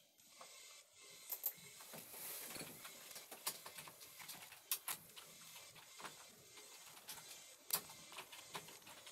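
Faint scattered clicks and rustles over a low hiss: handling noise on a handheld phone's microphone.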